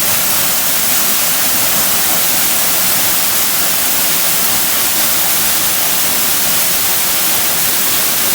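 Small waterfall: the steady, loud, unbroken rush of falling water.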